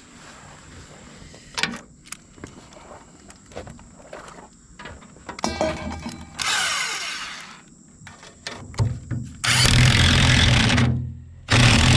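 A handheld power tool running in two loud bursts of about a second each near the end, driving the fastening of a rotary mower blade, with scattered tool clicks and clanks and a short run of fast ticks before it.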